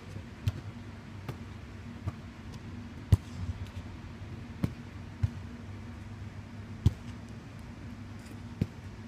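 A footvolley ball being struck in a passing and attacking drill: a series of sharp, irregularly spaced thuds, about eight in nine seconds, the loudest a little after three seconds and near seven seconds. A steady low hum runs underneath.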